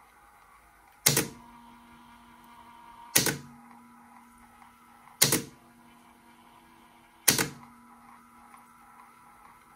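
Sharp mechanical clacks, four of them about two seconds apart, over a faint steady hum.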